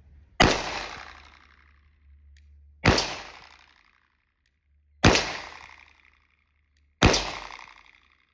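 Four shots from a Glock 19 9mm pistol fired slowly about two seconds apart. Each is a sharp crack that dies away over about a second.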